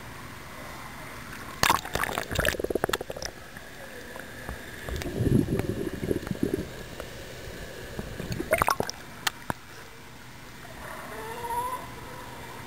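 Sea water sloshing and splashing against a camera held at the surface, with two bursts of sharp splashing crackle and a low, muffled gurgle in between while the camera is under water. A short call near the end may come from the sea lions.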